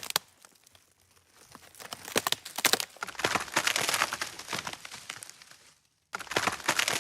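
Crinkling, crackling handling noise made of many small clicks and scratches, as small craft materials are worked by hand, broken by two abrupt dead-silent gaps.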